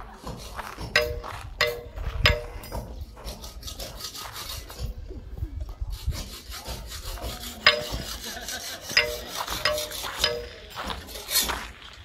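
A steel hand tool striking stone with sharp ringing blows, three in a row and then a run of five from about eight seconds in, roughly two-thirds of a second apart, with rasping scrapes between them.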